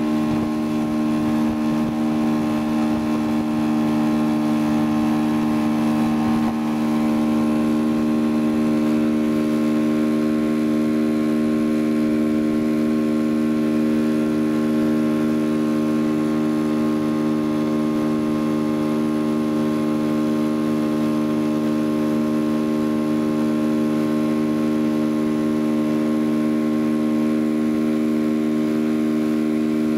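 Motorboat engine running at a steady speed while towing, a constant drone that holds one pitch throughout, over the rush of water and wake.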